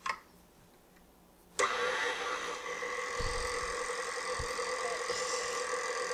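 Electric stand mixer switched on about a second and a half in, its motor then running steadily on low speed with a whine of several even tones as the flat beater works flour into peanut butter cookie batter. Two low thumps come in the middle of the run.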